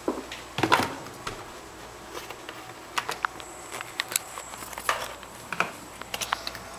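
Irregular small clicks and knocks from handling a plastic jug of green tea at a mini fridge, with the phone camera bumped about.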